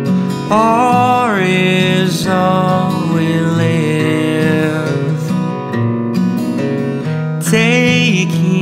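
Acoustic guitar strummed under a male voice singing long, held notes in a slow folk song. The voice drops out for a couple of seconds past the middle and comes back near the end while the guitar keeps playing.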